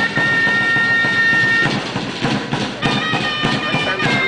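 Chirimía, a double-reed shawm, playing long, high, held notes: one for nearly two seconds, then a short gap, then a second held note about three seconds in. Drum beats carry on underneath throughout.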